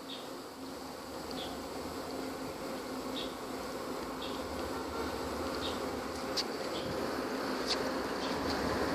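A steady low buzzing hum with short high chirps about once a second, under a rumbling noise that grows steadily louder: a train approaching along the line.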